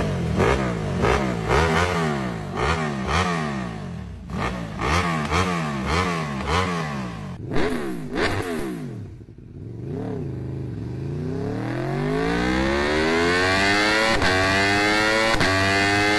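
V-twin engine being revved in a string of quick throttle blips, its pitch jumping up and dropping back again and again. After a brief lull it climbs in one long, steady rise in revs.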